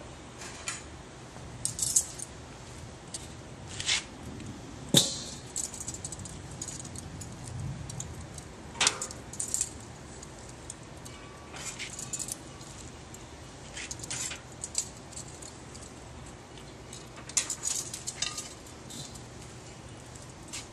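Metal tongs clicking and clinking against the steel cooking grate of a Weber Smokey Mountain smoker and the rim of a plate as chops are lifted off and laid on. The clinks are scattered and irregular, the sharpest about five seconds in and again near nine seconds, with a quick run of them near the end.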